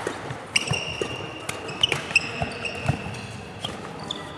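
Badminton rally: rackets crack against the shuttlecock several times in quick exchanges, amid long squeaks of court shoes on the sports-hall floor and low thuds of footfalls.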